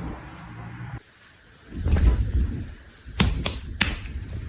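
A low, dull thump, then three sharp knocks in quick succession, about a third of a second apart.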